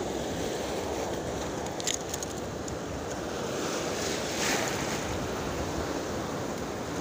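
Steady wash of choppy sea waves with wind buffeting the microphone, and a few brief clicks about two seconds in.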